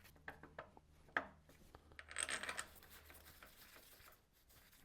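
Faint clicks and a brief rub of metal parts being handled by hand as a new bolt is fitted on the engine.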